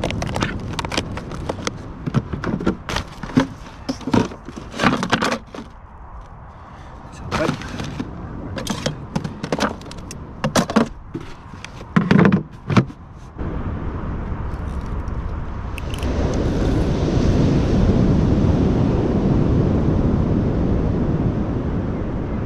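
Plastic food containers and a chilly bin's lid being handled: a run of clicks, taps and knocks, ending in two heavier thuds about twelve seconds in. Then a steady rushing noise that swells a little a few seconds later.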